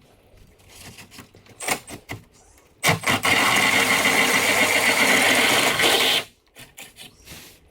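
A power tool cutting into a carbon fiber hood: a few light clicks and taps, then a steady high whine over grinding noise for about three seconds in the middle, stopping suddenly.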